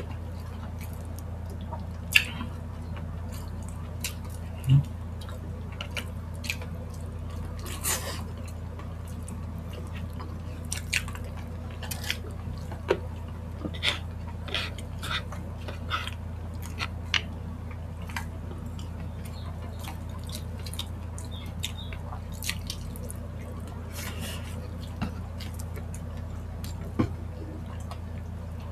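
Close-miked wet mukbang eating sounds as spicy chicken feet and mushrooms are eaten by hand: scattered sticky smacks, squelches and lip clicks, a few of them sharper, over a steady low hum.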